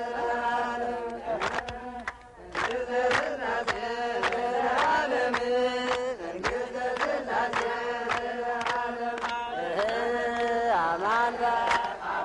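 A crowd of Ethiopian Christian worshippers chanting a prayer together in long held notes that slide from pitch to pitch, with hand claps keeping time.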